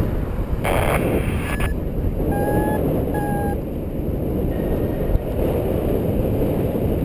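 Airflow rushing over the microphone of a camera on a paraglider in flight, with a louder gust of rushing about a second in. A couple of seconds in come two short, slightly rising beeps, typical of a paragliding variometer's climb tone, which signals lift.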